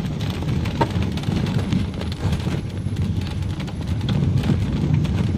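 Road noise inside a moving car: a steady low rumble of engine and tyres, with a few light knocks and rattles, one of them about a second in.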